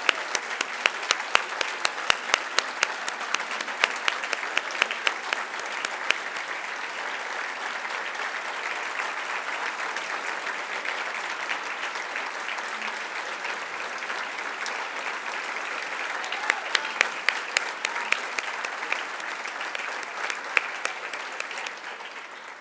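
Audience applauding steadily for about twenty seconds. Sharp single claps close by stand out in the first few seconds and again later on, and the applause dies away at the end.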